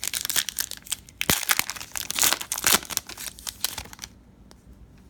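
Foil trading-card pack wrapper crinkling and being torn open by hand, a dense run of crackles that stops about four seconds in.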